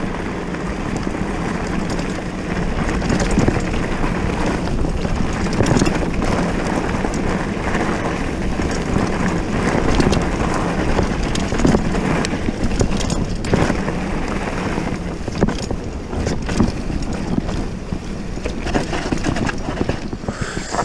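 Wind rushing over the microphone and a Boardman mountain bike's tyres running fast over a rough gravel and dirt path on a descent, with frequent sharp rattles and knocks from the bike over the bumps.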